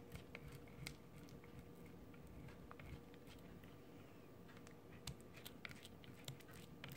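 Faint scraping and soft ticks of a silicone spatula stirring melted glycerin soap around a plastic mixing bowl, scraping its sides and bottom.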